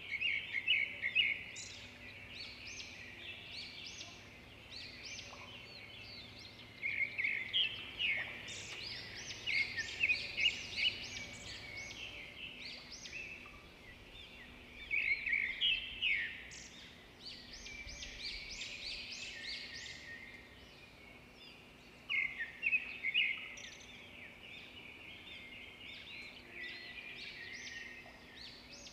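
Small birds chirping and singing: several bursts of rapid, high-pitched chirps, with quieter twittering between them.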